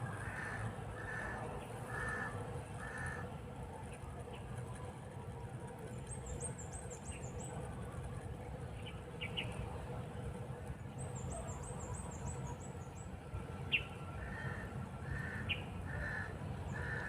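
A bird calling with a run of four short, harsh, evenly spaced calls near the start and again near the end. Fainter high chirping comes twice in the middle, over a steady low rumble.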